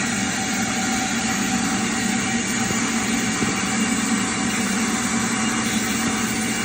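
BMW 340i's B58 inline-six engine idling steadily, with an even low hum.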